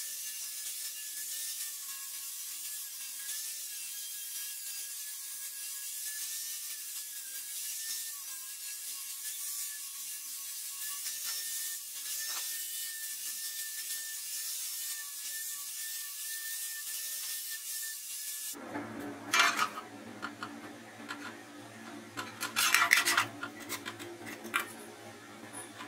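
Angle grinder running with a steady, slightly wavering high whine over the hiss of its disc grinding the edge of a round steel sheet. About 18 seconds in this stops abruptly, and a low hum follows, with two loud bursts of scraping a few seconds apart as sheet metal is handled.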